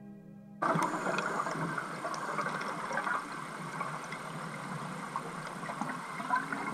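Soft ambient music cuts off about half a second in, giving way to a steady underwater hiss picked up by the camera, with scattered small clicks and knocks.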